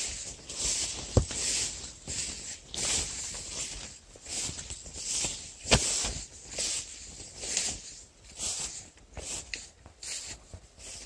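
Repeated rustling of dry plants and leaves in short bursts, with two sharp snaps, one about a second in and a louder one near the middle.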